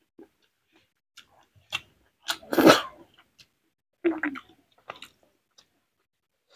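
Close-up eating sounds: wet chewing and mouth smacks, with soft clicks as fingers mix rice and boiled cabbage on a metal plate. A louder, longer wet sound comes about two and a half seconds in, and another cluster of smacks about four seconds in.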